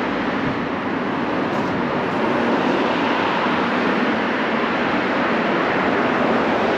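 Steady outdoor street noise, an even hiss with road traffic, and no distinct events.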